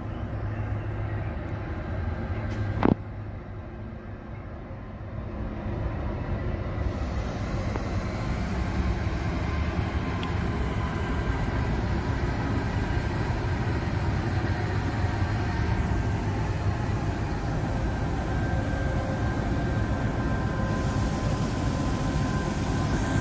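Pacific National NR class diesel-electric locomotives at the head of a freight train, engines running with a low hum and a few steady whining tones, growing louder as the train approaches. One sharp knock about three seconds in.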